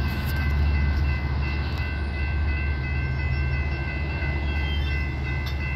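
Grade-crossing warning bells ringing steadily as a high, continuous chime. Under them is the low diesel rumble of an approaching Metra F59PHI locomotive and its train.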